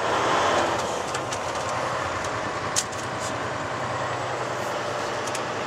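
Steady diesel engine drone and cab noise inside a Volvo 880 semi-tractor running bobtail, with a single short click about three seconds in.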